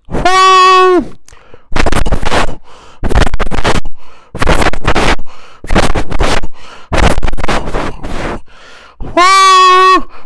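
A man imitating a departing train with his voice through cupped hands: a held horn-like hoot, then about five loud chuffing puffs roughly a second apart, then a second hoot near the end.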